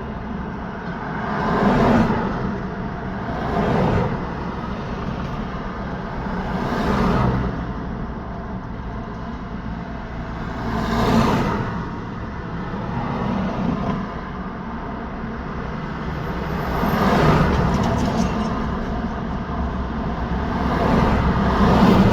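Road traffic: vehicles passing one after another, each a swelling rush of tyre and engine noise that rises and fades over a second or two, about six or seven passes over a steady traffic hum.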